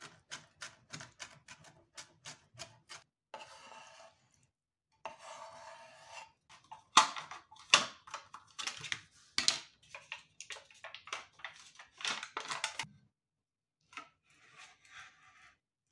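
Kitchen knife chopping red bell pepper on a wooden cutting board, about four strokes a second. After about three seconds this gives way to rustling and a run of sharp clicks and knocks as a plastic cream cheese tub is handled and opened, then a spoon scraping cream cheese out of the tub near the end.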